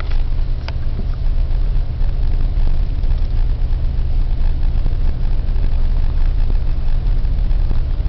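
Car engine and road noise heard from inside the cabin: a steady low rumble.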